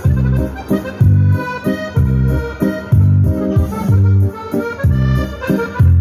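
Accordion-led dance music with a strong bass note about once a second and lighter chords between them, under a running accordion melody.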